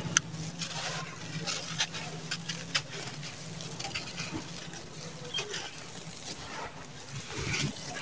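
Dry, gritty sand-cement with small white stones crunching and trickling as handfuls are squeezed, crumbled and poured, a run of irregular crisp crackles. Near the end a louder burst as the hands push down into the dusty pile.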